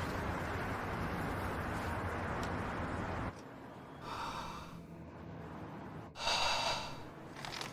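A steady rushing noise that cuts off suddenly about three seconds in, followed by a man's breaths: a short breath about four seconds in, then a louder, longer gasp near the end.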